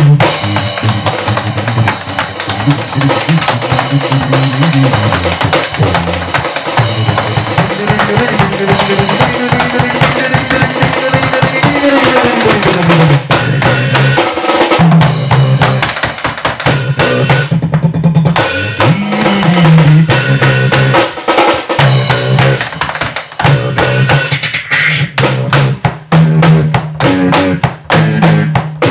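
Live performance of acoustic drum kit with beatboxing and tap dancing: a busy drum groove with bass drum, snare and rolls over a low bass line that slides down in pitch about twelve seconds in and back up near nineteen seconds.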